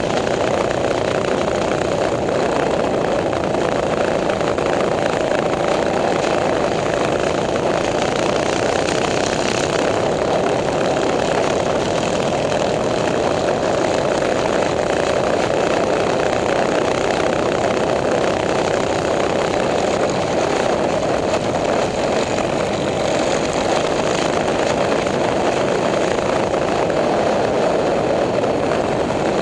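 Small single-cylinder four-stroke minibike engines running steadily while cruising, heard from on the bike.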